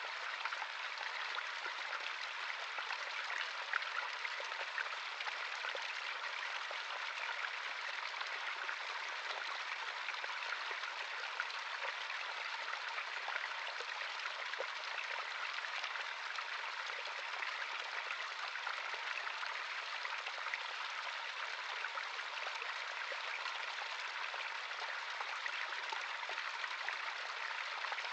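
Natural stream running steadily over rocks: a constant rushing and babbling of water, with small splashes throughout.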